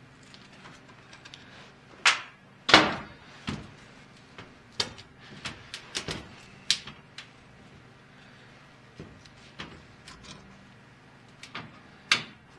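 Metal clanks and clicks from a power steering pump being pried apart with a screwdriver and its parts knocking against a metal drip pan: about a dozen sharp knocks at uneven intervals. The two loudest come about two and three seconds in, and the second rings briefly.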